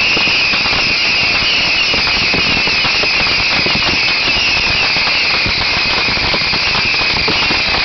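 Hundreds of bottle rockets and firecrackers from a beehive rocket rack going off at once: a dense, unbroken crackle of small bangs with a steady high-pitched hiss running through it.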